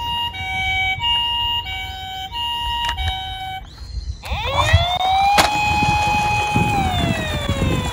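Toy ambulance's electronic siren sounding the Japanese two-tone hi-lo call, alternating high and low notes about every two-thirds of a second. Just after the middle it switches to a wail that rises, holds and falls, with a low rumble underneath and a sharp click partway through.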